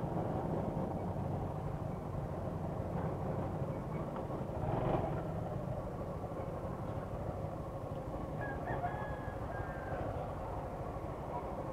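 Motorcycle engine idling steadily, with a brief swell of passing traffic about five seconds in. A rooster crows faintly a few seconds later.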